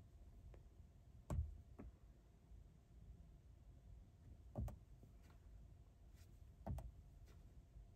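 Three soft taps of a gloved finger on a car's dashboard touchscreen, about a second in, near the middle and near the end, with a few fainter ticks between, over a faint steady hum in a quiet cabin.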